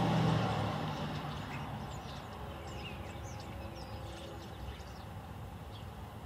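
A pickup truck drives across the crossing, its engine sound fading away within the first second. Afterwards there is a quiet outdoor background with scattered short, high bird chirps.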